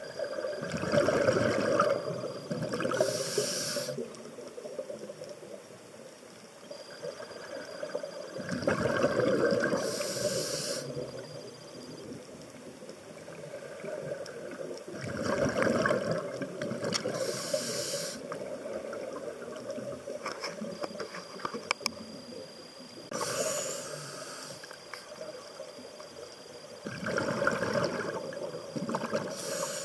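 A scuba diver breathing through a regulator underwater, about every six to seven seconds, five breaths in all. Each breath is a bubbling exhale and a sharp hissing inhale.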